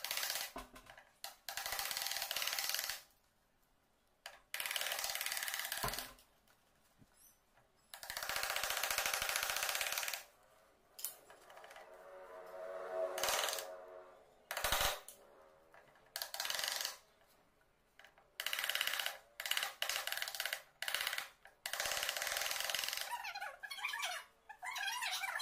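Chisel scraping and paring wood in a door's lock mortise, in rasping strokes of a second or two with short pauses between, sped up by fast-forwarding.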